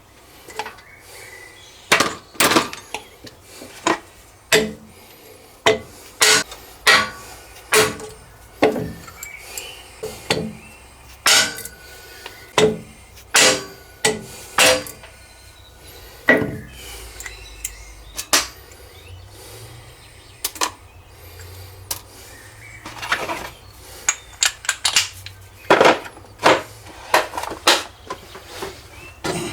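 Repeated sharp metallic knocks and clinks, irregular, about one every second with brief pauses: a Lisle valve keeper remover at work on the valve spring retainers of a Kubota three-cylinder cylinder head, with the loose valve parts clinking as they are handled.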